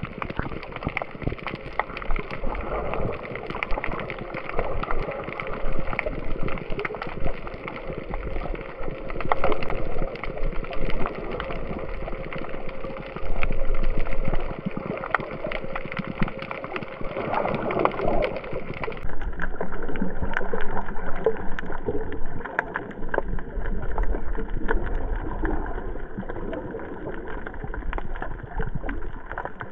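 Water splashing and gurgling close to the microphone, in irregular small splashes over a steady wash.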